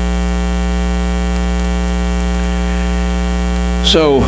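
Loud, steady electrical mains hum: a low buzz with many evenly spaced overtones, unchanging throughout, carried on the microphone and sound-system audio feed.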